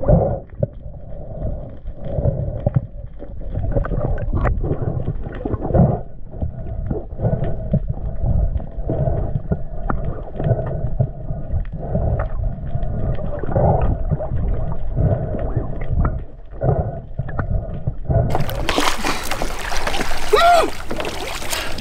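Muffled underwater sound through an action camera's waterproof housing: a low rumble of water with scattered knocks as the diver handles the speared white seabass. About 18 seconds in it switches to open-air sound of water splashing around a diver at the surface, with a couple of short pitched sounds near the end.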